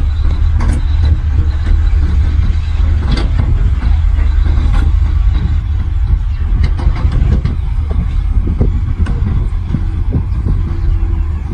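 Diesel engine of heavy earthmoving equipment running steadily with a deep rumble, with frequent scattered metallic clanks and knocks.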